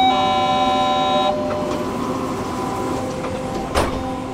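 Electronic signal tone in a tram, held steady and then stepping to a second, richer tone, stopping just over a second in. Under it runs the steady hum and whine of the tram's electrical equipment, and a single sharp knock comes near the end.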